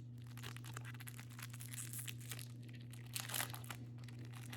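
Trading card pack wrapper crinkling and tearing as a pack is opened and the cards handled: an irregular crackle, busiest about three seconds in, over a steady low electrical hum.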